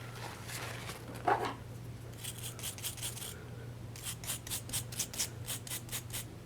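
Quick scratchy rubbing strokes, about four a second, in two runs, from small parts of a disassembled ratchet being worked over by hand, with one small knock before them.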